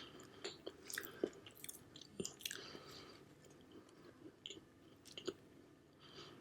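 Close-miked mouth chewing a soft pineapple marshmallow pie: faint, irregular wet smacks and small clicks that thin out toward the end.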